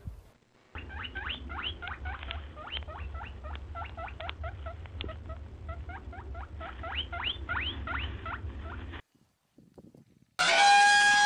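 Rapid short rising squeaks, several a second, from a small animal for about eight seconds over a low rumble. Then, about a second before the end, an elephant trumpets loudly: a held call with a steady pitch.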